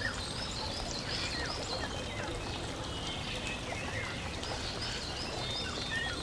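Nature ambience: steady running water with many small birds chirping, short quick chirps scattered throughout.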